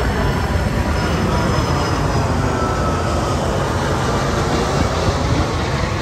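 Twin-engine jet cargo plane flying low overhead: a loud, steady jet engine roar with a faint whine that falls slightly in pitch midway.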